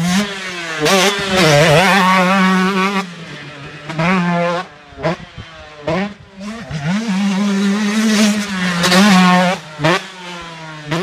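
A Husqvarna TC 125 two-stroke motocross bike revving hard, its engine note climbing again and again as it pulls through the gears. The throttle is snapped shut and reopened several times as the bike takes the jumps.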